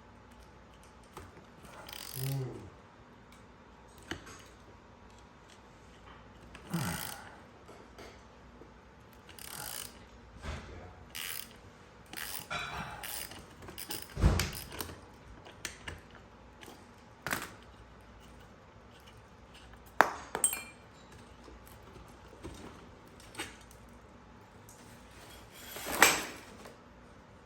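Irregular clinks, clicks and knocks of workshop handling, a dozen or so separate strikes with the loudest about fourteen, twenty and twenty-six seconds in.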